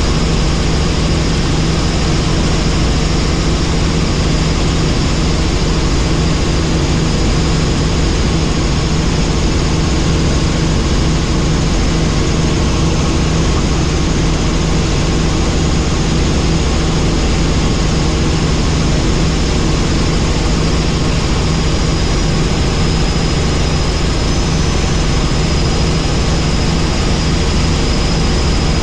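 Helicopter in flight: the rotor and turbine engine run steadily as a loud, even low drone, with a thin high whine above it.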